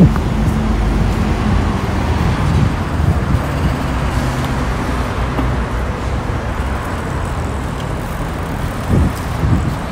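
Steady city street traffic noise: a low rumble of cars and buses on the road. A brief low thump comes right at the start and another about nine seconds in.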